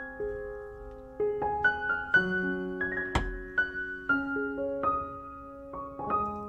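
Background piano music, single notes struck one after another and left to ring. About three seconds in comes a single short knock.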